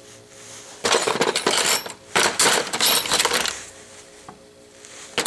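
Small loose steel tools (dividers, compasses, Allen wrenches) clinking and rattling against each other in a cardboard box as they are handled and sorted. There are two spells of clatter, one about a second in and a longer one from about two seconds in, then a couple of single clicks near the end.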